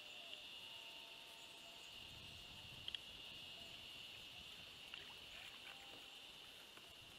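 Faint outdoor ambience on open water: a steady high-pitched drone, with a pair of sharp clicks about three seconds in and a few lighter ticks later.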